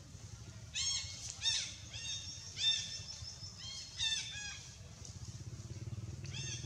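Long-tailed macaques screaming: a string of about ten short, high-pitched, arching squeals in the first four seconds, then two more near the end, the sound of a young monkey's distress in a squabble.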